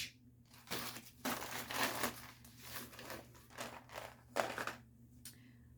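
Plastic snack wrappers and packaging crinkling and rustling as they are handled, in short irregular spells that die away near the end.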